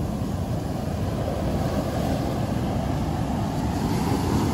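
Ocean surf breaking and washing up the beach, mixed with wind on the microphone: a steady low rumble.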